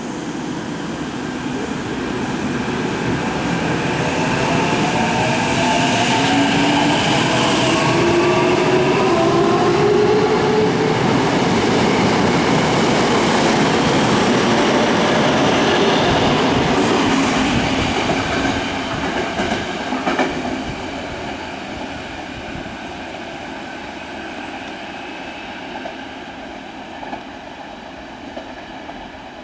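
Tokyo Metro 03 series electric train pulling out and accelerating, its motors giving a whine that rises in pitch over the first several seconds. The running noise grows louder, peaks mid-way, then fades as the train leaves.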